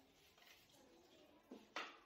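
Two sharp clicks about a quarter of a second apart near the end, from hands and a screwdriver handling the split air conditioner's indoor unit, over faint background voices.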